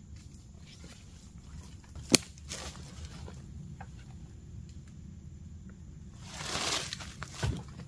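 Footsteps and rustling in dry leaves on a forest floor, with one sharp click or snap about two seconds in and a louder brushing swish near the end, followed by a short thump.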